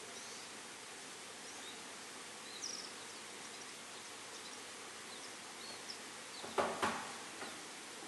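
Scattered short, high chirps of small wild finches (wild canaries) over a steady outdoor hiss. Two short, loud clattering knocks come close together about six and a half seconds in.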